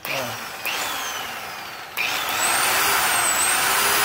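Stanley electric polisher with a rubber backing pad, running free in the air: a motor-and-fan whir that steps up in loudness about a second and again two seconds in as it speeds up, then runs steadily with a thin high whine.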